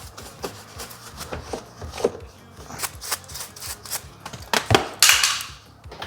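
Scattered light clicks and taps of hands working on a car's interior door trim panel. About four and a half seconds in there is a sharper knock, then a brief rubbing swish as dust is wiped off the panel.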